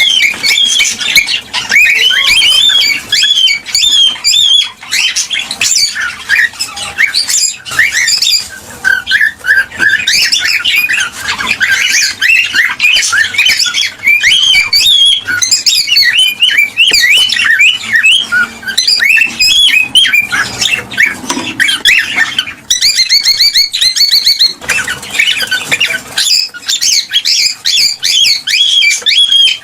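Cockatiels chirping and squawking without pause, many short calls overlapping, with a fast trill about two-thirds of the way through.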